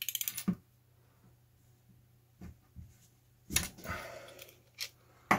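Hand tools working on a metal cable-TV tap: a quick run of ratchet-spanner clicks at the start, then faint taps, a short scraping metal rattle, and a sharp knock right at the end.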